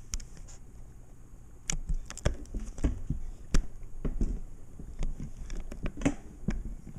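Irregular clicks and low knocks of handling, starting a couple of seconds in, with the sharpest knock about three and a half seconds in.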